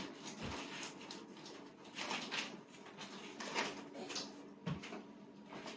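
A few scattered light knocks and bumps of household objects being handled and set down, over a faint steady low hum.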